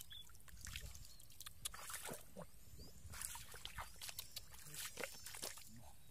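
Irregular wet splashing, slapping and squelching in shallow muddy water as hands grope through the mud and rubber boots shift in it.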